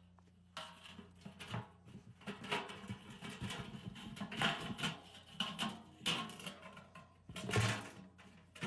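Metal washing-machine parts being handled and worked on: irregular clanks, knocks and scrapes, with one heavier knock near the end, over a steady low hum.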